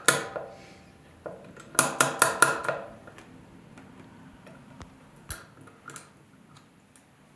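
Steel ratcheting screwdriver (MetMo Driver) clicking as its side arm is cranked to drive a screw into wood: metallic clicks from the spring-loaded pin snapping into the slots of the chuck, with a quick run of about six clicks about two seconds in and fainter scattered clicks later.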